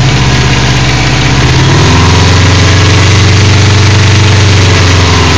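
2002 Subaru WRX 2.0-litre turbocharged flat-four engine running, with a grinding noise from the top of the cylinder head on the cylinder 1 and 3 side. The owner rules out a rod nut and suspects the left timing belt tensioner, amplified through the hollow camshafts.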